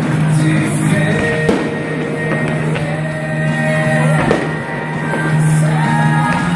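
Rock music with singing, drums and guitar, playing steadily and loud.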